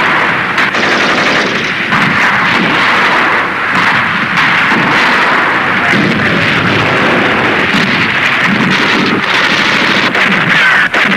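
Battle soundtrack of continuous machine-gun fire and gunshots, dense and unbroken. Falling whistles begin near the end.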